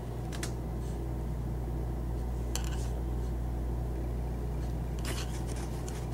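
Steady low electrical hum under a few faint clicks and scratches from a metal crochet hook catching the yarn as stitches are worked.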